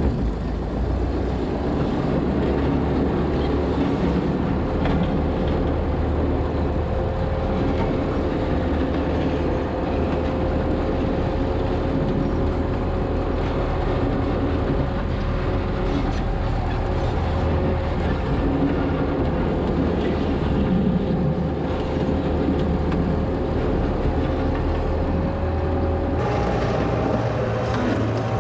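1963 Volvo LM225 wheel loader's engine running steadily, with a steady whine over it. The engine note steps up near the end.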